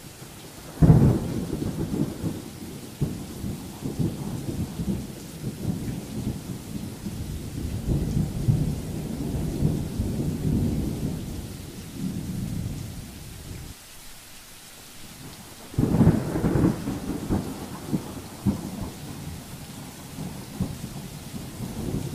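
Thunder: a sudden clap about a second in and another about three-quarters of the way through, each followed by a long low rolling rumble, over a faint steady hiss of rain.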